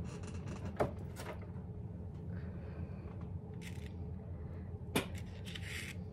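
Handling noise from someone moving close to the microphone: soft rustles and a few sharp clicks, one near the start and one about five seconds in, over a steady low hum.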